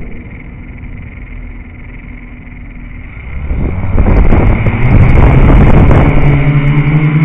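Quadcopter's electric motors and propellers heard from its onboard camera: quiet for the first few seconds, then spinning up about three and a half seconds in with a loud rush of noise that settles into a steady hum as it lifts off.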